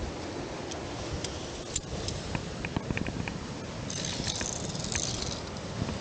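Via ferrata carabiners and metal climbing gear clicking and jingling, with a run of sharp clicks about two seconds in and a longer jingling rattle about four seconds in, over a steady rushing noise.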